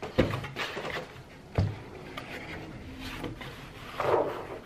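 Cardboard pizza box being handled and turned, with two dull knocks and rubbing of the cardboard. Near the end there is a short vocal exclamation.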